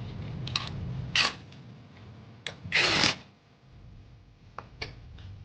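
Workshop handling noises from parts and tools being worked: a scattering of light clicks, with two short rushing bursts about a second and three seconds in, the later one the loudest.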